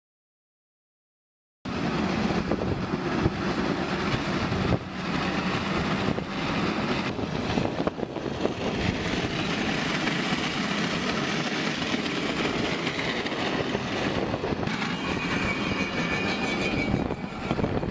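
A car's exhaust pipe and underside dragging along the road as it drives, metal scraping on asphalt in a steady grinding noise with scattered clicks. It starts after about a second and a half of silence, and a thin squeal joins for a couple of seconds near the end.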